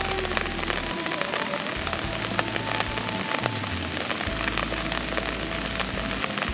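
Rain falling steadily, a dense patter of drops, with soft background music underneath.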